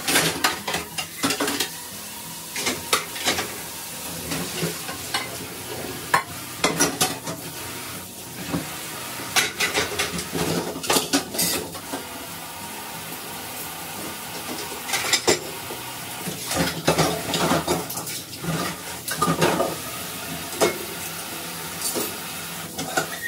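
Dishes and cutlery clinking and clattering in a sink while they are rinsed under running tap water, over a steady hiss of water.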